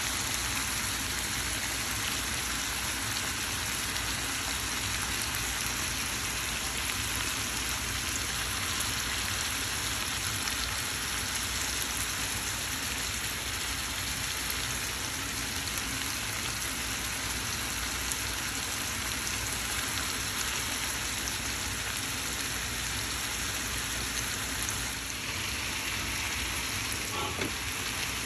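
A steady hiss that keeps the same level throughout.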